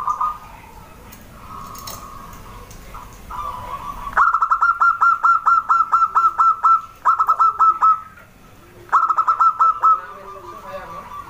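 Zebra dove (perkutut) song: a soft trilling for the first few seconds, then from about four seconds in, loud bursts of rapid staccato coo notes, about six a second, each burst lasting one to three seconds with short pauses between. Softer, lower coos sound in the gaps.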